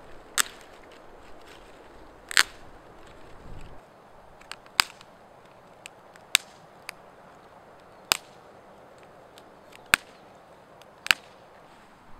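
Dry twigs and branches snapped by hand: sharp single cracks every second or two, about seven loud ones with a few fainter snaps between.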